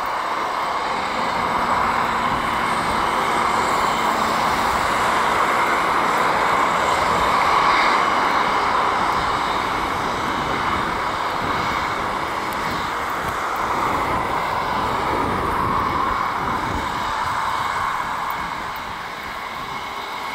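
Airbus A320-family airliner's twin jet engines running steadily at low power as it taxis along the runway: a continuous engine whine and rush.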